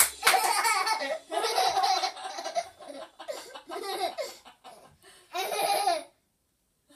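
A toddler laughing in a run of high-pitched bursts that stops about six seconds in.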